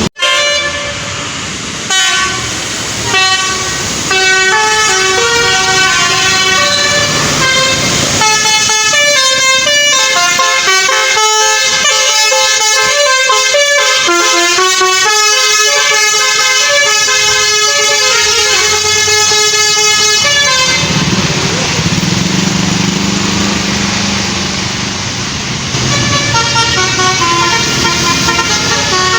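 Tour bus's telolet basuri musical horn playing a tune of quick stepped notes in several tones at once. About two-thirds through, the tune breaks for several seconds into a noisy rush with a low hum, and it starts again near the end.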